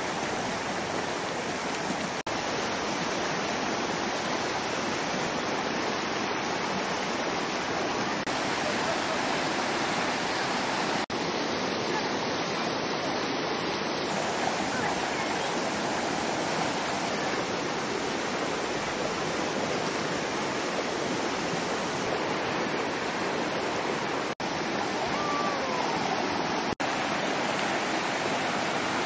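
River water rushing steadily: a dense, even wash of flowing water, broken by a few very brief dropouts.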